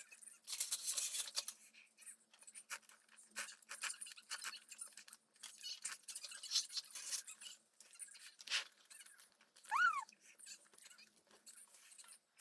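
Scattered light rustling and clicking, with one short high whine that rises and falls about ten seconds in.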